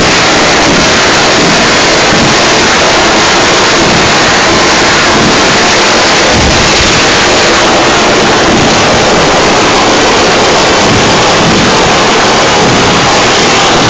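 Ground-level fireworks crackling and bursting without a break, so dense and loud that the recording overloads into a constant wall of noise.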